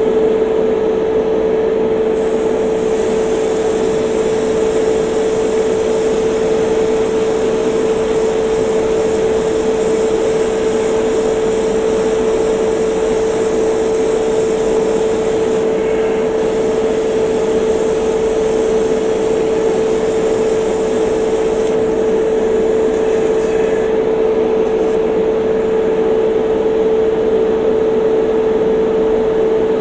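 Airbrush spraying paint in long hissing passes over the steady hum of its air compressor. The spray breaks off briefly twice and stops a few seconds before the end, while the compressor hum runs on.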